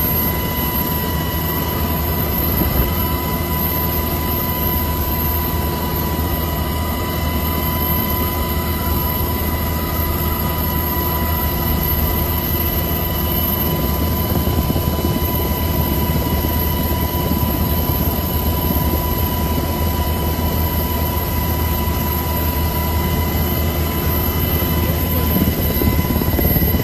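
Helicopter engine and rotor noise heard from inside the cabin with the side door open: a loud, steady drone with a steady whine over it and rushing wind.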